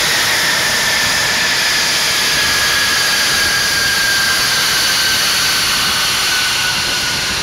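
F-22 Raptor's twin Pratt & Whitney F119 turbofans running at taxi power: a loud, steady jet rush with a high whistle that slowly drops in pitch as the jet turns past.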